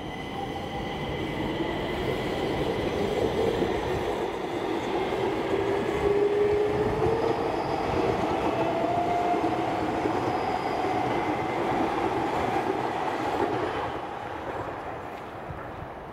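A metro train passing: a rushing rumble that builds over the first several seconds and fades toward the end, with whining tones that glide slowly in pitch and a steady high whine above them.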